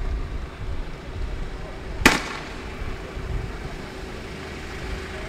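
A single sharp bang about two seconds in, with a short ringing tail, over a low steady rumble.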